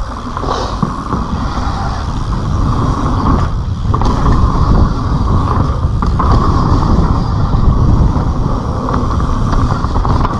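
Kona Process 134 full-suspension mountain bike descending dirt singletrack: knobby tyres rolling over dirt and roots, and the bike rattling and clattering over bumps. Wind rumbles on the camera microphone throughout.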